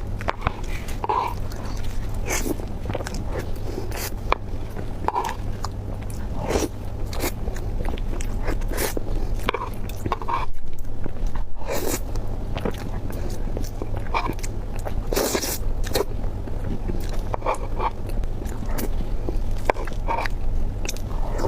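Close-miked eating: a person biting and chewing food, with many short crisp clicks and wet mouth sounds over a steady low hum.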